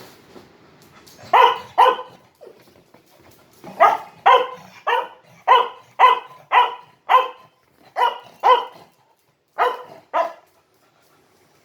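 A dog barking in short bursts: a quick pair, then a run of about seven barks, then two more pairs.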